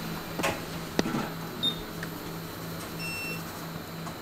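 Electronics repair-bench room sound: a low hum pulsing on and off, two sharp clicks of small tools in the first second, and two short electronic beeps, one about one and a half seconds in and a slightly longer one about three seconds in.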